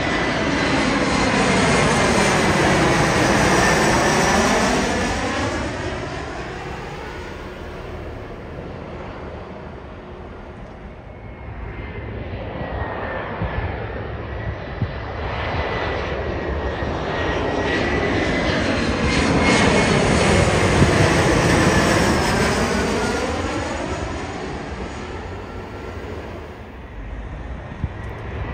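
Embraer E175 regional jets on landing approach passing overhead, one after the other: the twin turbofans swell up and fade away twice, about a quarter of a minute apart. A high fan whine bends in pitch as each jet goes by.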